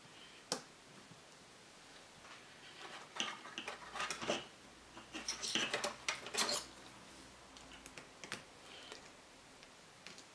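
Small metal engine parts and tools clinking and clicking against each other and the bench during hand work on a model engine. The clicks come in two busy spells in the middle, with scattered single ticks before and after.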